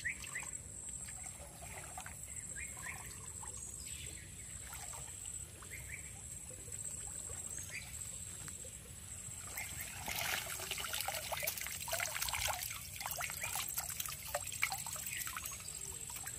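Water splashing, sloshing and trickling as a man wades waist-deep in a muddy creek and hauls a woven bamboo fish trap up from the bank. The splashing and dripping grow busier and louder about ten seconds in, as the trap is lifted out of the water.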